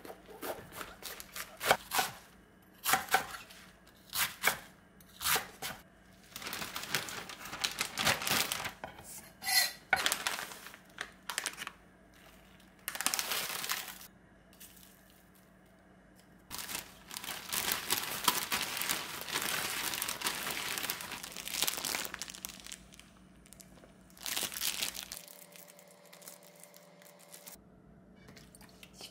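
A chef's knife crunching through a head of napa cabbage on a wooden cutting board in a series of short, crisp strokes. Then a plastic zip-lock bag crinkles and rustles in several long stretches as the chopped cabbage is packed into it.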